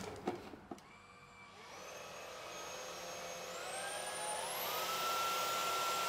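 A couple of clicks, then a Roidmi cordless stick vacuum's motor spins up: a whine rising in pitch for about three seconds, then running steady and high-pitched.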